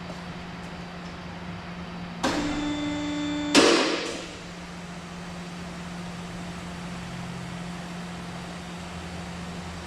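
Over a steady low hum, a small motor whirs for about a second and a half, then a loud harsh burst cuts in and dies away within about a second.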